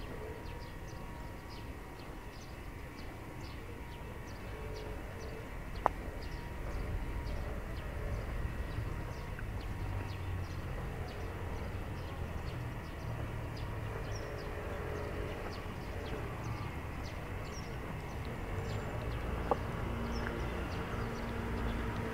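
Outdoor walking ambience: a steady low rumble of distant traffic, with a vehicle engine passing louder in the second half, light high ticks throughout, and two sharp clicks, the first about six seconds in and the second near the end.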